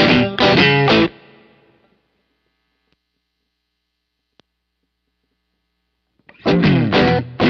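Overdriven electric guitar (Stratocaster into a Laney GH50L head) playing a strummed riff through a Collateral FX Klon-style overdrive pedal; the playing stops about a second in and rings out. After a pause with one faint click as the pedal is switched, the same riff starts again near the end through an Analogman King of Tone overdrive.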